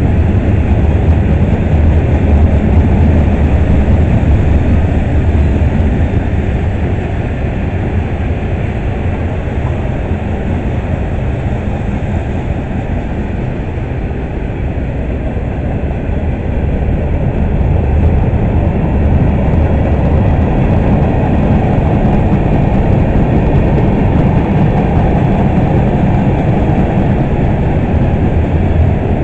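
Freight cars of a long CSX manifest train rolling past: a steady rumble of steel wheels on the rails that eases slightly midway and builds again toward the end.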